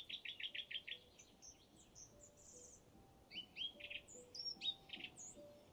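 Songbirds singing: a fast run of about eight notes in the first second, then high thin notes and scattered chirps. Faint soft music with slow held notes lies underneath.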